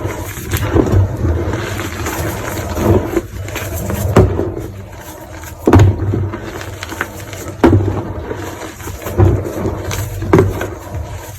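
Crunching and crumbling as something is crushed by hand, with a sharp crack about every one to two seconds.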